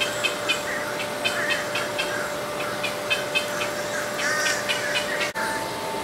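Small birds chirping: quick runs of short, high chirps, several a second, mixed with short warbling calls, over a steady hum. About five seconds in the sound briefly drops out and the hum comes back at a higher pitch.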